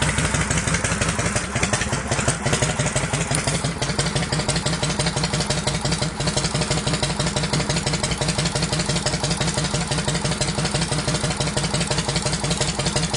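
Yamaha Road Star's air-cooled V-twin engine idling with a steady, even pulsing beat.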